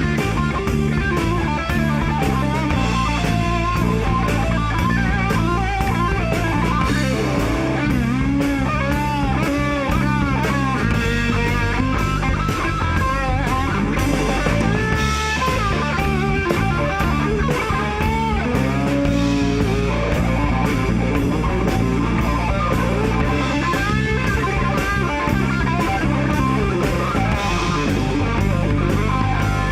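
Rock band playing live, with no vocals: a lead electric guitar plays bending, wavering notes over a steady drum beat and bass.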